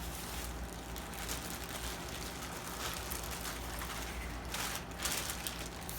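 Faint rustling and knocking of test leads and probes being handled and pulled from a soft carry bag, a little busier about five seconds in, over a steady low hum.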